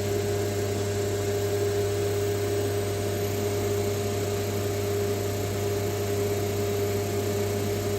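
Steady machinery hum of running HVAC plant equipment: a low hum and a clear higher tone held evenly over a background hiss, with no change in speed or load.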